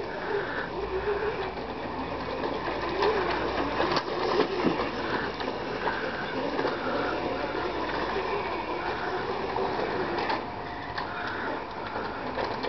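Small chain-driven electric ATV whirring, its motor whine rising and falling in pitch as it speeds up and slows.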